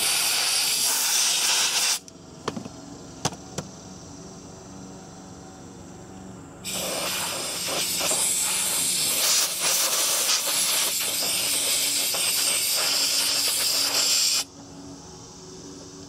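Compressed-air blow gun hissing in two blasts at a mini-split's brass flare fittings, blowing off leftover leak-detector soap: a short blast ending about two seconds in, then a longer one of about eight seconds that stops sharply near the end. A few light clicks fall between the blasts.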